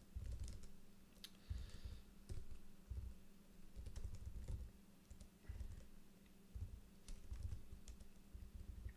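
Faint typing on a computer keyboard: irregular keystrokes with short pauses as shell commands are typed out, over a steady low hum.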